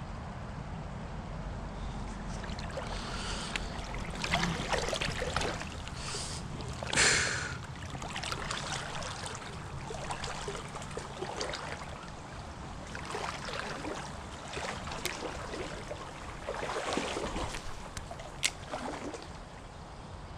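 Shallow stream water sloshing and splashing in irregular bursts around a wading angler over the steady flow of the brook, with a louder splash about seven seconds in and a sharp click near the end.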